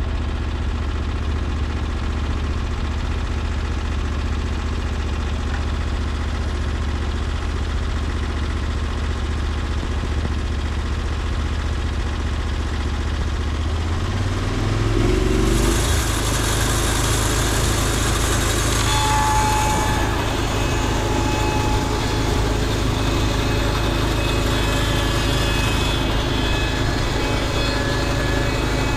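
Norwood LumberPro HD36V2 portable bandsaw mill's engine running steadily, then changing pitch about halfway through as a loud hiss joins in, typical of the band blade starting a cut through a log.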